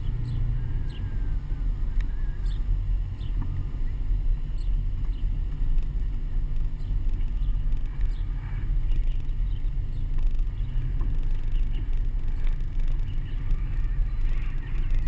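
Pickup truck driving slowly, heard through a camera strapped to its outside: a steady low rumble of engine, tyres and air noise.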